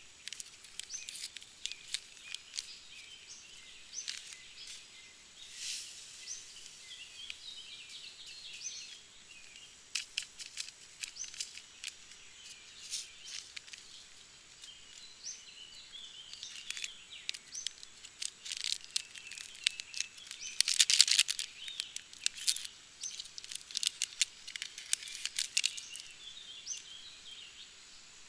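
Small birds chirping and calling on and off, over scattered light clicks and crinkles of handled packaging. About 21 seconds in comes a louder, brief paper rustle as a tea-bag wrapper is torn open.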